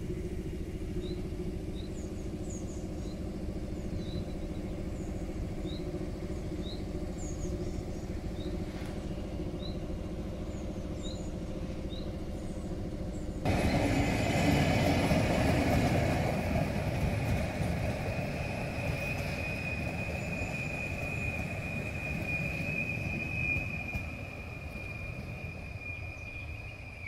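PKP Intercity ED160 (Stadler FLIRT) electric multiple unit rolling past on the rails. A steady low rumble and hum gives way about halfway through to louder wheel-on-rail noise, with a steady high squeal that holds until near the end.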